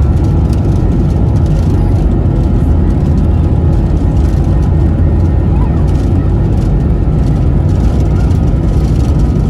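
Steady, loud low rumble of engine and airflow noise inside an Airbus A321 airliner cabin, with a faint steady hum over it.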